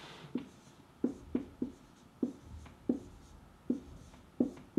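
Dry-erase marker writing a word on a whiteboard: a string of short, uneven strokes, about eight of them.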